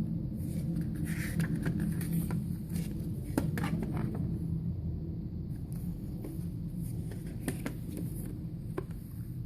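Handling of album photos and paper: soft rustles and a few sharp clicks, over a steady low hum.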